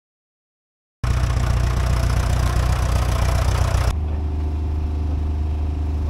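Vintage tractor engine running, starting abruptly about a second in after silence. Just before four seconds the sound cuts to a lower, steadier engine hum.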